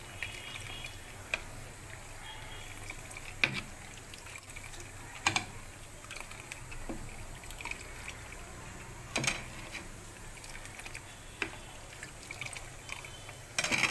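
Faint liquid sounds with a handful of short, sharp clinks or drips spread out over a low steady background hum.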